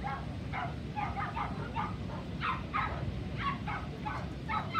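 A dog barking repeatedly, short barks in quick irregular succession, about two or three a second, over a steady low background rumble.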